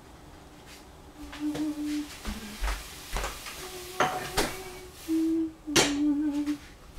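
A person humming short, flat notes, with scattered sharp clicks and knocks of kitchen things being handled; the strongest click comes near the end.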